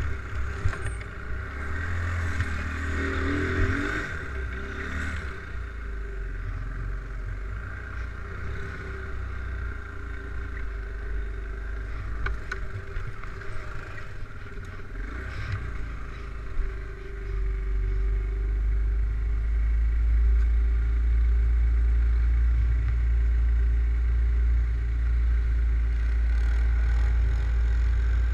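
ATV engine running while riding, revving up briefly a few seconds in, with a heavy low rumble that grows louder about two-thirds of the way through.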